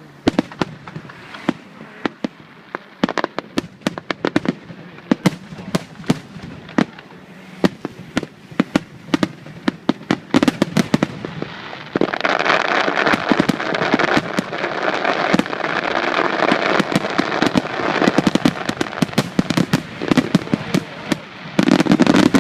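Aerial fireworks bursting: a run of sharp bangs from exploding shells. About halfway through, a dense continuous crackle sets in, with the bangs coming on top of it.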